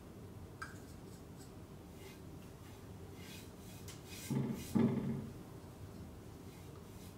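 Paintbrush applying wood stain to an unfinished wooden board: faint rubbing brush strokes, with two louder short knocks a little past the middle.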